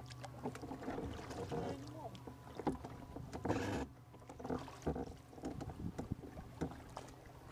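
Kayak paddle strokes: the blades dip and splash in the water at an uneven pace, the loudest splash about three and a half seconds in.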